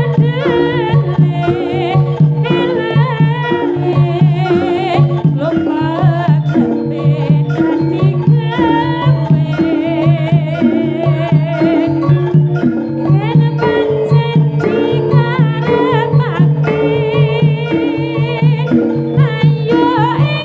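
Javanese jaranan gamelan music: tuned gongs and metallophones repeat a steady low pattern under regular drum strokes, with a high melody wavering quickly in pitch above them.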